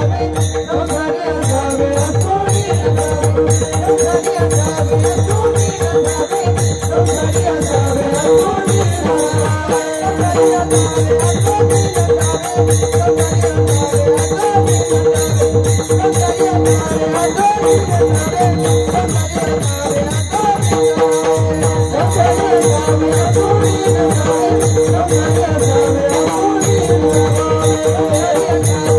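Devotional kirtan music: a steady held drone under a wavering melody, kept in time by a low drum beat and quick, continuous strokes of small hand cymbals.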